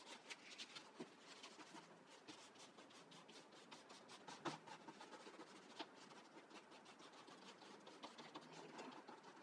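Faint rustling and scratching of paper as hands press and smooth glued paper cutouts flat onto a collage, with one sharper tap about halfway through.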